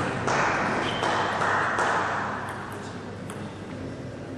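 A few light clicks of a celluloid table tennis ball bounced on the table before a serve, one with a brief high ping about a second in, over murmuring spectators in a large hall; the murmur fades after about two seconds.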